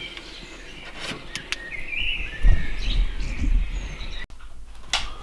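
Small birds chirping and calling in short repeated notes, with scattered clicks and a low rumble of the camera being handled about halfway through.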